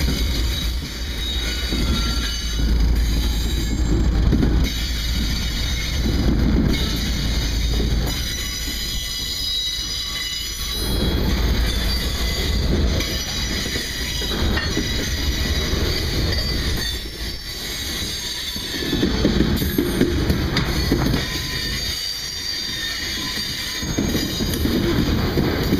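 Freight train passing close by. The low rumble of the trailing diesel locomotives gives way after about eight seconds to the rolling of freight cars and covered hoppers over the rails. A thin, high wheel squeal runs on over it.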